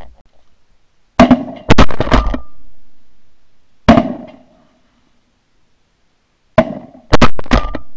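Shotguns firing at Canada geese: a quick volley of four or five shots a little over a second in, a single shot near four seconds, and another volley of four or five shots from about six and a half seconds.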